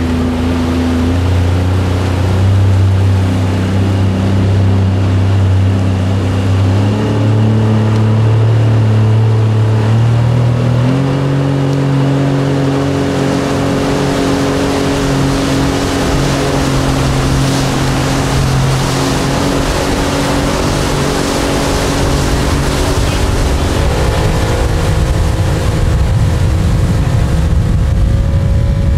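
Sea-Doo jet boat's engine running under way while towing a tube, its pitch stepping up in stages about a second in, around 7 and 11 seconds, and again near 24 seconds. The rush of water and spray from the jet wake rises over the second half.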